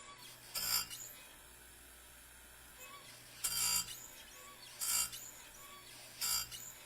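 Bench chainsaw-chain grinder's flat wheel grinding down the rakers (depth gauges) of a saw chain in four short touches, one link after another.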